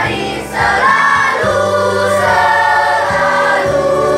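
Children's choir singing held notes together to an electronic keyboard accompaniment played through a small amplifier, the low keyboard notes changing every second or so under the voices.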